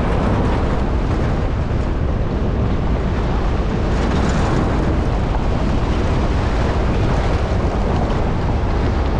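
Heavy wind buffeting the microphone over a steady low rumble.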